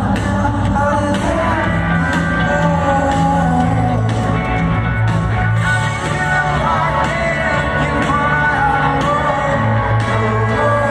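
Rock band playing live, with a male lead singer's melody wavering over steady, held bass notes.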